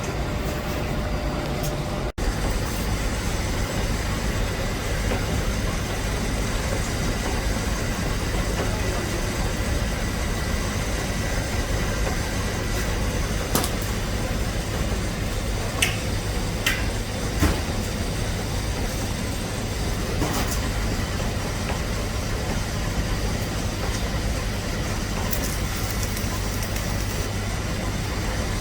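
Steady low mechanical hum with a handful of sharp clicks, mostly in the middle stretch.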